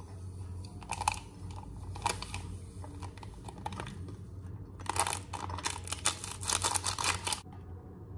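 Plastic-foil instant-coffee sachets crinkling and rustling as their powder is shaken out into a glass mug. There are a few scattered crackles at first, then a dense spell of crinkling about five seconds in that stops sharply a couple of seconds later.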